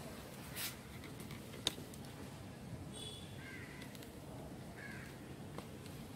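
A bird calling, a few short calls about three and a half and five seconds in. A sharp click about a second and a half in is the loudest sound.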